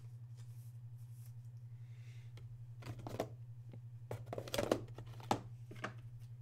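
Trading card handled with plastic sleeves and holders on a table: rustling plastic and several sharp clicks from about three seconds in, loudest near the middle, over a steady low hum.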